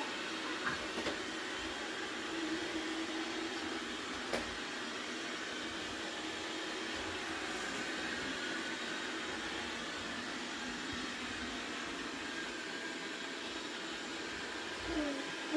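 Robot vacuum cleaner running with a steady whir, with a single sharp click about four seconds in. A baby gives a short rising vocal sound near the end.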